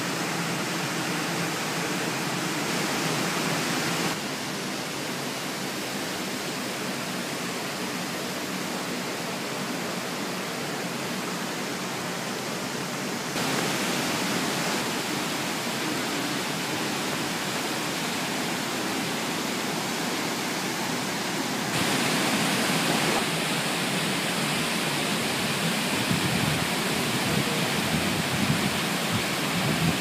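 Steady rush of falling water from the Senga Falls waterfall and its gorge stream. The sound shifts abruptly in level and tone three times, about 4, 13 and 22 seconds in, with a deeper rumble in the last stretch.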